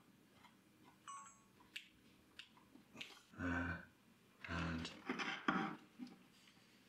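Small clicks and handling noise as crocodile-clip test leads are fitted to a stepped attenuator's rotary switch, with three louder, longer rustling scrapes in the second half.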